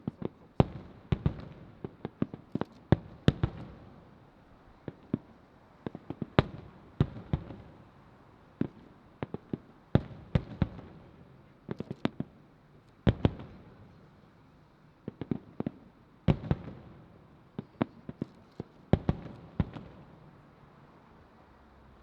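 Aerial firework shells bursting: many sharp bangs at uneven intervals, some in quick clusters, each followed by a short echo. They stop about two seconds before the end.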